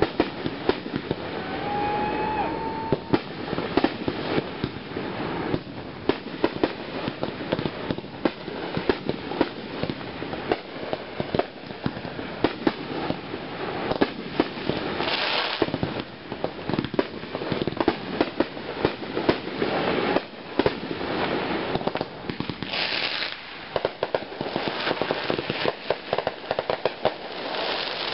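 Aerial firework shells launching and bursting in a dense barrage: a rapid, unbroken string of bangs over constant crackling, with short stretches of hiss.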